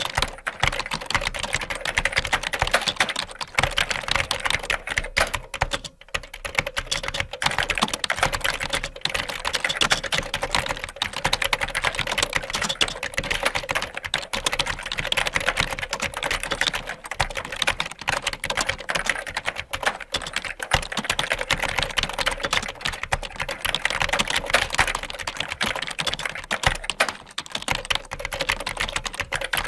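Fast typing on a computer keyboard: a dense, continuous stream of rapid keystroke clicks, with brief pauses about six seconds in and near the end.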